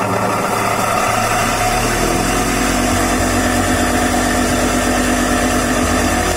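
Electric lawn mower running steadily as it cuts grass, a constant motor hum that settles into a lower steady tone about a second and a half in.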